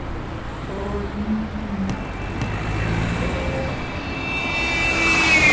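A motor vehicle passing by over a steady low rumble. Its high whine grows louder and drops in pitch near the end as it goes past.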